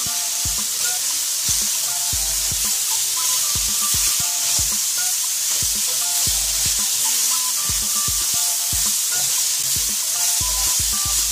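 Beef cubes and sliced onions sizzling steadily as they fry in a pan, with a spatula stirring and knocking against the pan many times.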